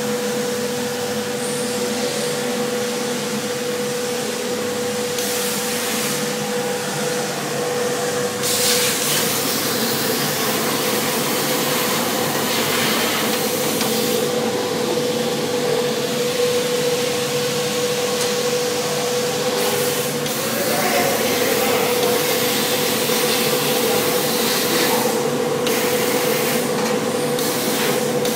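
Suction-feed sandblasting cabinet running: a steady hiss of compressed air and abrasive with a steady hum from the machine. The hiss swells several times, as when the blast gun is triggered.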